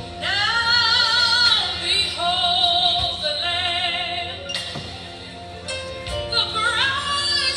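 A worship song playing: a singer holding long notes with vibrato over instrumental accompaniment, with a break between phrases about two-thirds of the way through.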